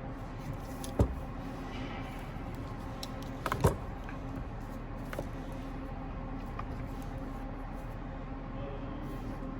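Parts being handled on a workbench: a sharp knock about a second in, then a quick run of clicks and a knock a little past three seconds in, over a steady background hum.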